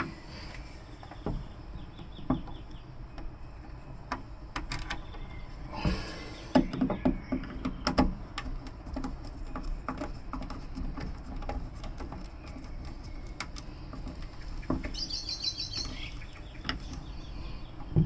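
Light clicks, taps and scrapes of a screwdriver working the terminal screws of a Victron SmartSolar MPPT 100/30 charge controller as a cable is clamped in and tightened. A bird chirps briefly about fifteen seconds in.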